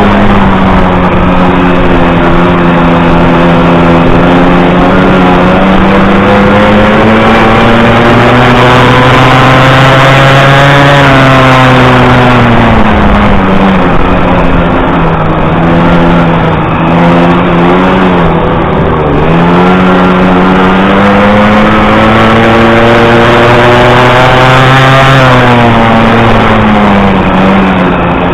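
50cc two-stroke grass-track motorcycle engine at full race throttle, heard close up from the bike itself. Its pitch climbs on the straights and drops away into the turns, falling and wavering in the middle and rising again before one more drop near the end.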